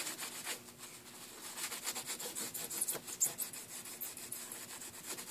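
A hand rubbing and wiping across a bare printed circuit board, a faint scratchy rubbing in quick strokes that eases off briefly about a second in.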